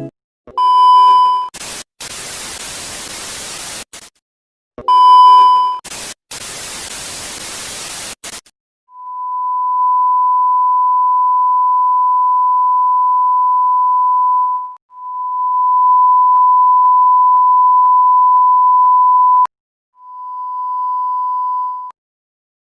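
Television 'no signal' sound effects. There are two short high beeps, each followed by about two seconds of static hiss. Then a steady high test-tone beep is held for several seconds, three times over with short gaps, the last the shortest and the second with faint crackle.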